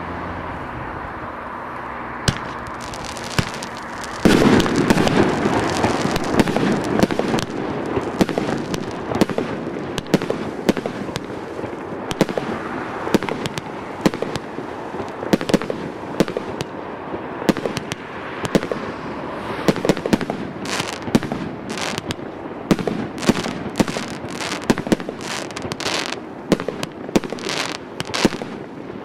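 A CGF-792 multi-shot consumer fireworks battery firing. It opens with a steady hiss and two single pops, then about four seconds in breaks into a loud, dense volley of shots and crackling. Toward the end this turns into a fast run of separate sharp bangs.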